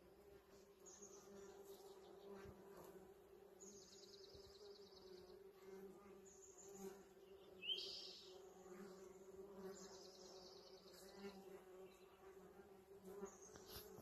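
Faint, steady hum of many bees foraging in a flowering holly tree. A few short high chirps and trills sound over it, the loudest a quick rising chirp about halfway through.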